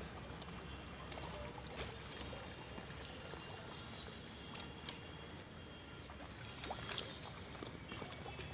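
Quiet outdoor ambience: a steady faint hiss with a few scattered soft clicks.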